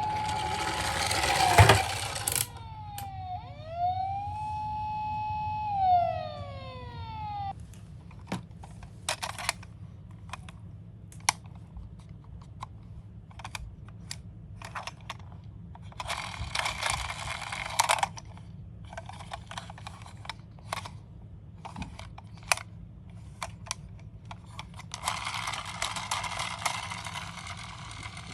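A toy ambulance minicar's small electronic siren wails, its pitch rising, holding and falling, twice in the first seven seconds or so. Then come clicks and taps of plastic toy cars being handled, with two stretches of rattling as toy cars roll down a slope, about two-thirds of the way in and near the end.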